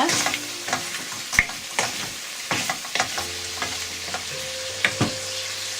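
Chicken pieces sizzling in sesame oil with ginger-garlic paste, stirred with a spoon that scrapes and knocks against the pan several times, the sharpest knocks about a second and a half in and near the end.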